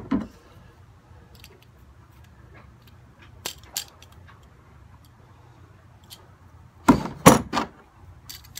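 Metal tubular track rails and plastic ties clicking and clacking against each other as a track section is handled, with a few faint clicks and then a louder quick run of clacks about seven seconds in.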